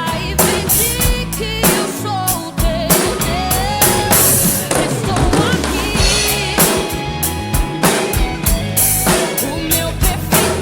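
Drum kit played along with a worship-pop song in an instrumental passage: steady kick, snare and rimshot strokes under a wavering melody line.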